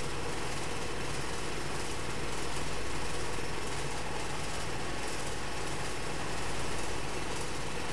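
High-pressure air compressor running steadily under load as it fills a carbon fiber air tank, with tank pressure climbing past 3,000 psi. The level swells slightly twice.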